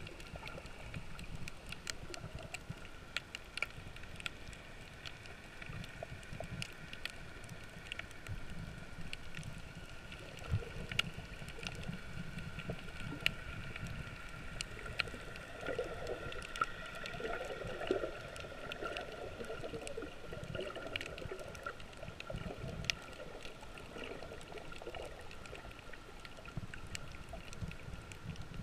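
Underwater ambience picked up by a camera below the surface on a coral reef. A muffled low rumble of moving water runs under a faint steady hum, with many scattered sharp clicks and crackles throughout.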